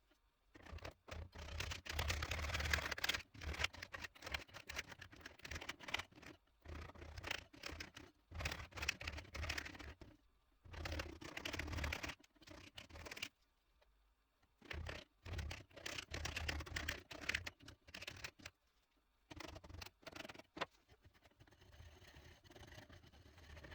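Scraping strokes on a new hammer handle being shaped by hand, coming in bursts of a few seconds with short pauses between them. The scraping grows fainter near the end.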